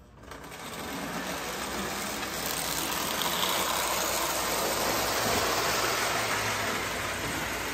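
Marx 400 steam locomotive and its train of plastic cars on scale trucks running on three-rail tinplate track, a steady mechanical rolling and motor noise. It grows louder over about the first second as the train comes by, then holds even.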